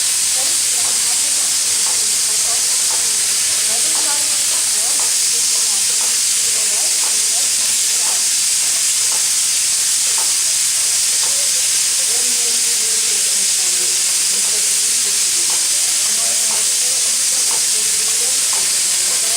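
Steam locomotive L-4600 letting off steam in a steady, loud hiss that holds even without a break.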